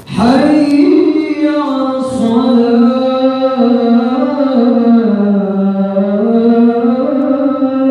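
Male muezzin chanting the adzan, the Islamic call to prayer: one long, loud phrase held without a break, its pitch wavering and sliding through melodic ornaments.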